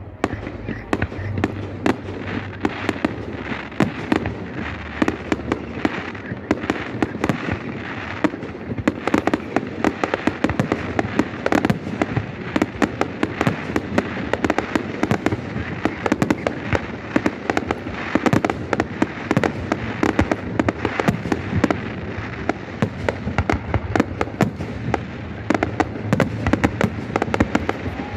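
Fireworks display: a dense, continuous barrage of bangs and crackles, many shots a second, growing louder and denser after about nine seconds.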